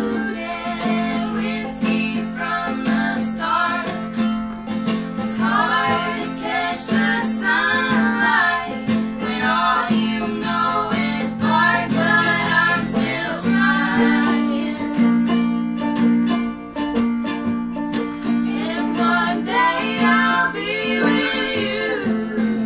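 Live acoustic string-band music: three women singing in harmony over acoustic guitar, mandolin and banjo, with the backing chord changing about halfway through.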